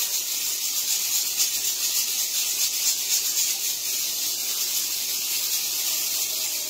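A steady, even hiss with no calls or singing from the parrot.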